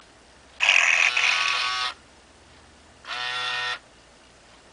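Hasbro FurReal Friends Lucky toy cat playing two electronic meows through its small speaker: a longer one about half a second in and a shorter one about three seconds in.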